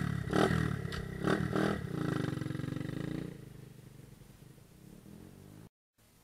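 125 cc dirt bike engine blipped three times, revving up sharply each time. It then runs steadily and fades away about three seconds in as the bike pulls off, leaving near silence.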